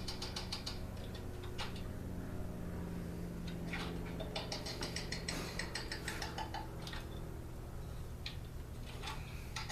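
A steady low electric hum from a device left running, with several bursts of rapid fine ticking and a few single clicks.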